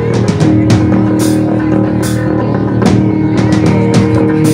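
A live rock band playing: guitar and bass holding sustained chords over a drum kit, with repeated cymbal crashes.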